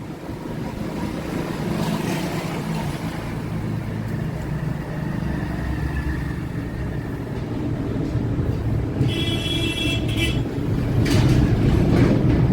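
Street traffic: vehicles running and passing, a rumble that slowly grows louder. A short high tone sounds about nine seconds in, and a few sharp clicks follow.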